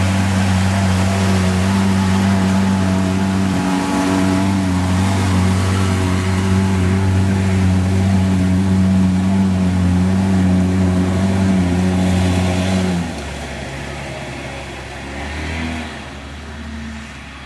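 Polaris Ranger utility vehicle's engine running at a steady pitch under load while it ploughs through a flooded creek, with rushing, splashing water. About 13 seconds in the engine sound drops away and everything becomes quieter.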